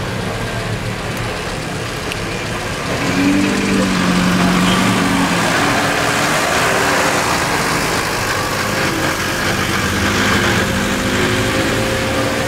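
Engines of classic cars and a Mercedes-Benz van running at low speed as they drive slowly past one after another, louder from about three seconds in.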